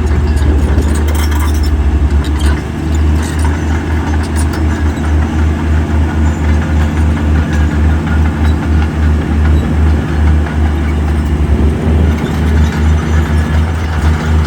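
Heavy earthmoving machine's diesel engine running with a loud, uneven low rumble, with a few metallic clanks in the first few seconds.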